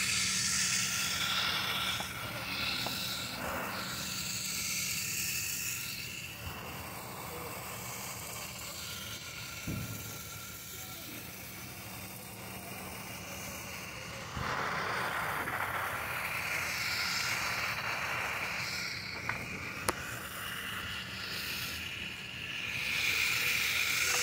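Hissing and rustling noise that swells and fades, over a faint steady hum, with two short sharp ticks about three quarters of the way through.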